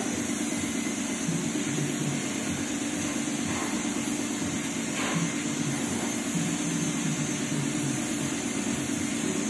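Steady hiss of a compressed-air paint spray gun spraying, over a steady low hum.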